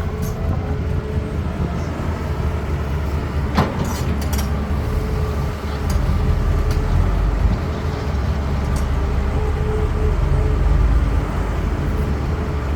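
CAT 320D excavator's six-cylinder Cat C6.4 diesel engine running under working load. It grows louder for a second or two about six seconds in and again around ten seconds in, over a steady faint whine. There is a sharp knock about three and a half seconds in.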